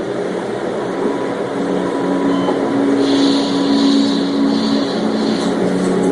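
Television drama audio playing in the room: a held low musical drone of sustained tones, building slightly in loudness, with a band of hiss joining in the middle.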